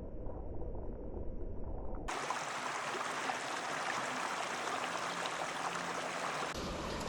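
A small stream's water rushing in a steady, even hiss. It comes in suddenly about two seconds in, after a muffled low rumble, and the sound changes again near the end.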